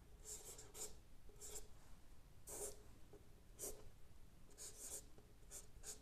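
Chalk scratching on a chalkboard as a formula is written: a faint run of short, irregular strokes, about nine of them.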